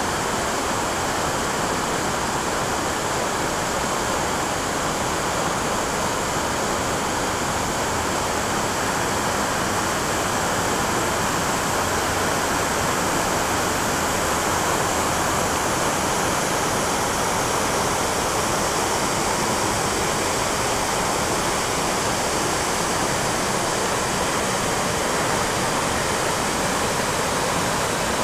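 Water rushing and falling through a narrow rock gorge: a steady, even rush that does not change.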